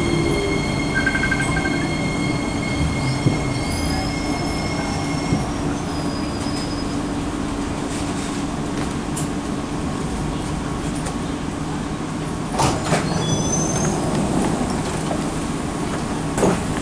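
Singapore MRT C151C and C151A trains braking into a station, heard together from inside the cars over a steady rumble. Steady high whines from the traction equipment stop about five seconds in. Short high-pitched squeals follow, then two knocks near the end as the trains come to rest.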